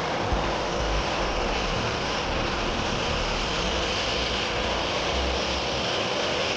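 CFM56-7B turbofan engines of a Boeing 737-800 running: a loud, steady rushing noise with a thin high whine on top and low rumble underneath.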